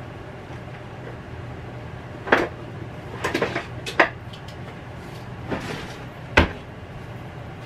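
Kitchen clatter: several separate sharp knocks and bangs, with the loudest about four seconds in and again near the end, over a steady low hum.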